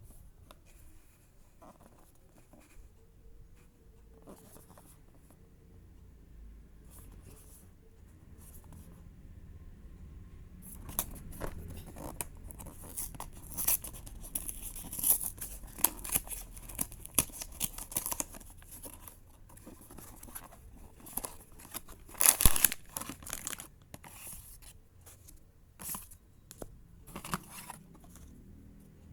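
Blind-box packaging being torn open and crinkled by hand. At first there are only a few light handling clicks. From about ten seconds in there is steady tearing and crinkling, with one loud rip about three quarters of the way through.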